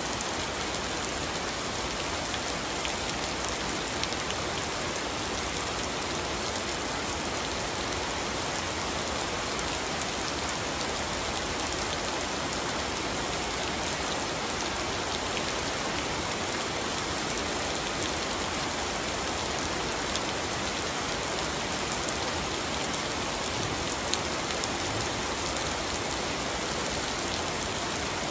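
Steady rain falling on terracotta clay roof tiles and into a swimming pool, an even hiss of drops with a few sharper individual drop hits.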